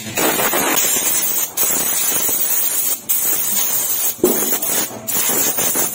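Compressed-air blow gun hissing in blasts, blowing out a motorcycle carburetor and then the paper air filter element to clean them for a tune-up. The hiss breaks off briefly a few times between blasts.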